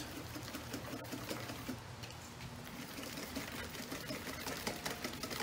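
Cake batter being stirred by hand in a stainless steel mixing bowl: a rapid run of light clicks and scrapes of the utensil against the metal.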